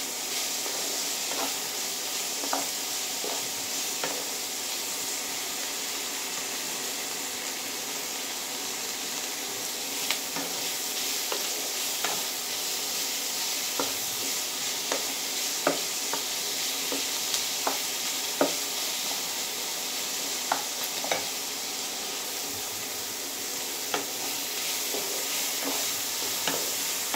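Chopped onion, tomato, ginger and garlic sizzling steadily in mustard oil in a nonstick kadhai, stirred with a spatula that scrapes and taps the pan at irregular intervals.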